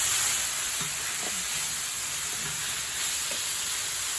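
Pork belly sizzling on a hot iron griddle: a steady, even hiss of frying fat.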